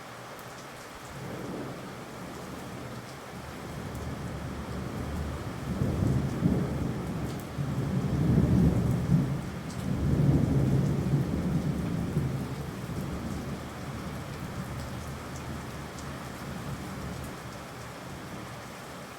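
Steady rain falling, with a long roll of thunder that builds from about a second in, is loudest in the middle and fades away near the end.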